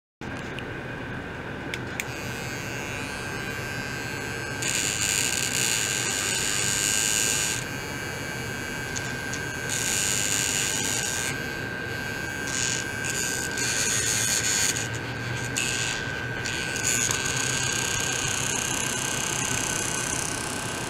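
Ultrasonic probes driven by a function generator: a steady high whine with a hiss that switches on and off in stretches of one to three seconds.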